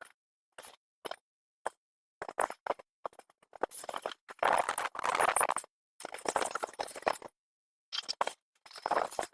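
Great horned owlets giving raspy, hissing begging calls, in bursts of about a second, cut up by short dropouts and clicks in the nest cam's audio.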